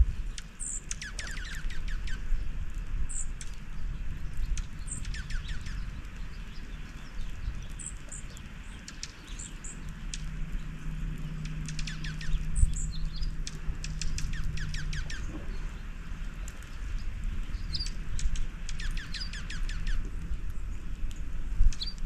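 Small songbirds at a feeder chirping, with short high chirps scattered throughout and several quick series of rapid repeated call notes, over a low background rumble.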